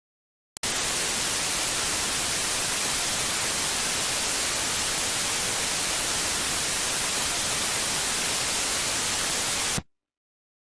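Steady hiss of white-noise static, brightest in the high end, that starts suddenly about half a second in and cuts off sharply near the end.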